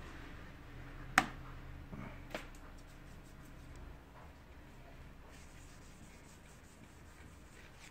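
Paintless dent repair glue pulling on a car's front fender: one sharp snap about a second in, as a glue tab pops off the painted panel, then two fainter clicks about a second later and a few light ticks.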